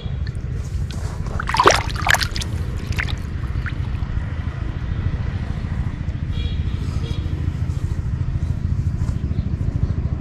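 A hooked catfish splashing in shallow water, two quick splashes about one and a half and two seconds in, over a steady low rumble.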